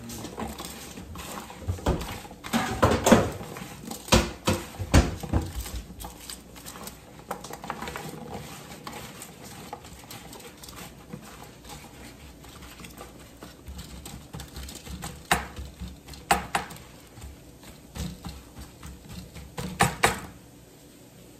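Kitchen handling noises: irregular knocks and clatters of dishes and utensils being moved around, busiest a couple of seconds in and again in the last third, with quieter shuffling in between.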